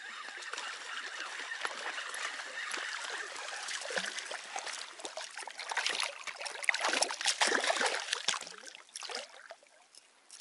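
Hooked pike thrashing and splashing at the water's surface beside an inflatable kayak, the splashing loudest and most broken from about six to nine seconds in, over a steady light water hiss at the start.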